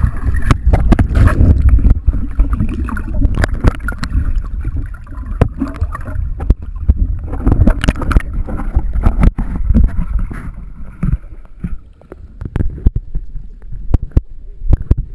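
Pool water sloshing and gurgling around a waterproof action camera's housing as it moves underwater and breaks the surface, a muffled rumble with many sharp knocks of water against the case. It eases off in the last few seconds.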